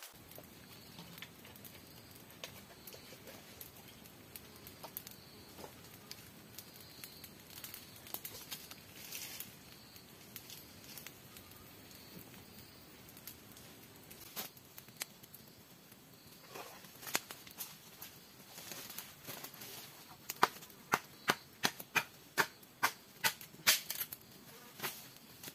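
Faint background with scattered small clicks. Near the end comes a run of about ten sharp knocks, two to three a second.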